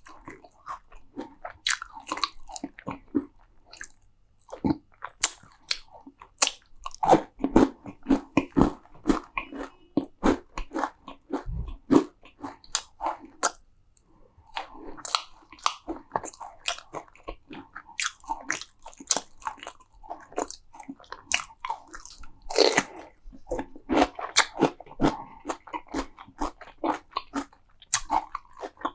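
Close-miked eating of crunchy food: sharp crunching bites and chewing in dense runs, with short pauses between mouthfuls.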